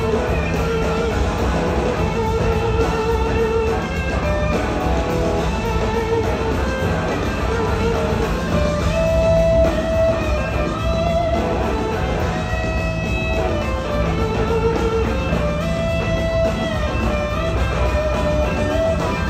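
Live rock band playing an instrumental passage: electric guitars over keyboards and two drum kits, with a lead line of long held notes.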